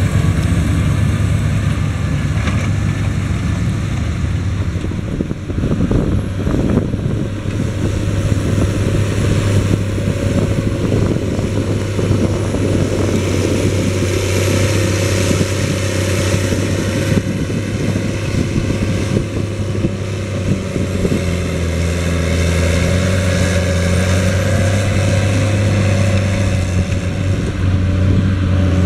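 Big farm tractor diesel engines working under load while moving soil: a Fendt Vario pulling a scraper, then a Challenger MT765 rubber-tracked tractor dragging a levelling blade. The engines run with a steady low drone, with a few knocks and rattles from the working machinery several seconds in.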